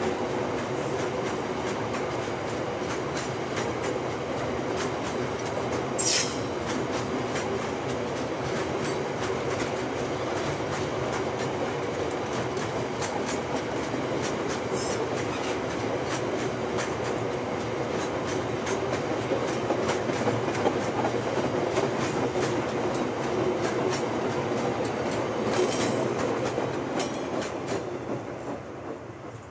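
Narrow-gauge grain hopper wagons rolling past, wheels clicking over the rail joints over a steady hum, with a brief high squeal about six seconds in. The sound falls away near the end as the last wagon passes.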